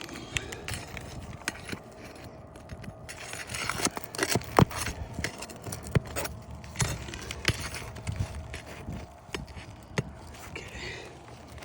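A metal pry bar scraping and clinking against asphalt shingles and roofing nails as a shingle's seal is broken and its nails are pried out: irregular sharp clicks and knocks with scraping, the loudest knock about four and a half seconds in.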